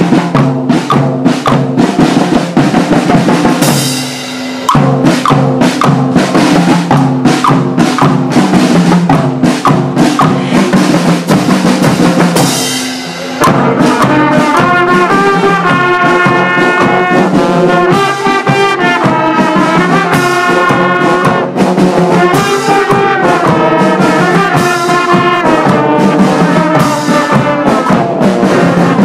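Loud music with drums and brass. It cuts out briefly twice, about four and thirteen seconds in, and from about halfway a brass melody plays over the beat.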